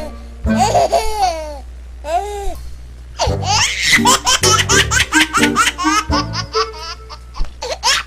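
Repeated high-pitched giggling laughter over background music with a steady low bass.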